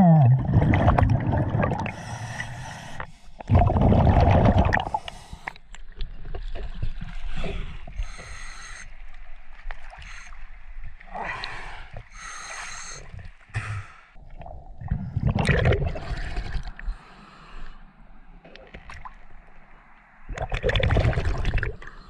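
Water sloshing and gurgling around a scuba diver swimming at the surface, in irregular bursts, with breathing between them.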